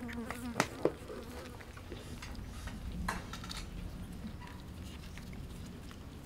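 Steady buzzing of flying insects, with a few small clicks and knocks in the first second.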